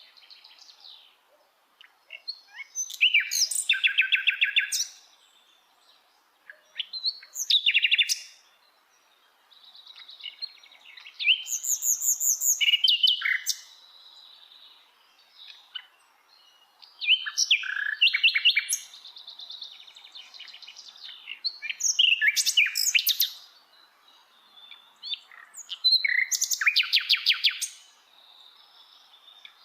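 Common nightingale singing: about six loud phrases of fast repeated notes and trills, each a second or two long and coming every four to five seconds, with softer notes in between.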